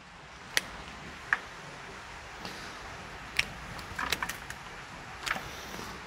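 Scissors snipping through the roots of a Cattleya orchid: a handful of short, sharp snips at irregular intervals, with a quick run of them about four seconds in, as the old roots are cut away.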